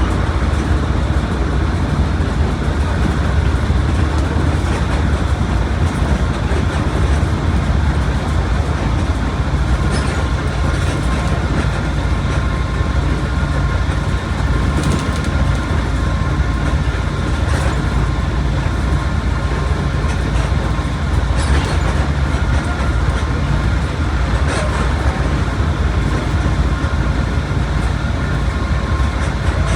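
Mercedes-Benz OF1721 bus running at a steady speed, its engine and drivetrain giving a constant low drone mixed with road and tyre noise, with a few faint clicks.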